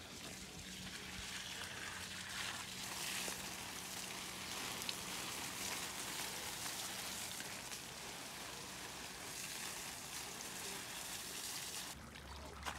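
Water from an open garden hose pouring and splashing onto leafy plants and soil, a steady hiss of running water at a strong flow.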